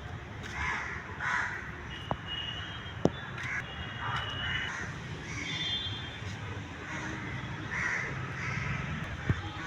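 Birds calling over and over, short harsh calls coming about every half second to a second, with a few thin high chirps mixed in and a couple of sharp clicks.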